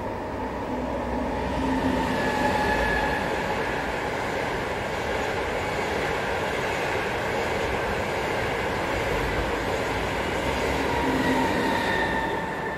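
Trenitalia Frecciarossa ETR 500 high-speed train passing: a continuous rush of wheels on rail with a faint steady whine, swelling as the rear power car goes by near the end.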